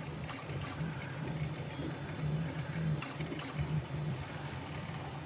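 FLSUN Q5 delta 3D printer printing: its stepper motors make a low whirring that shifts and breaks up with each move of the print head.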